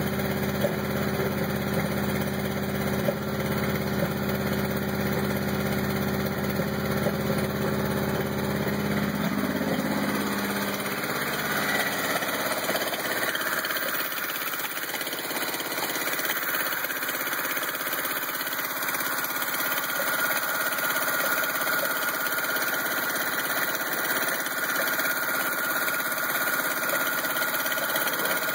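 1986 Honda CRX engine idling roughly. About ten seconds in, the deep low sound drops away and a higher hiss and whine take over.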